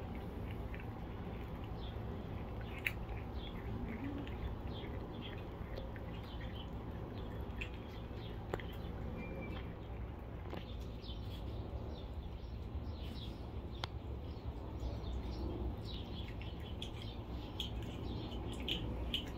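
Cats chewing raw chicken, making small wet clicks, with the short chirps of small birds throughout and a steady low hum.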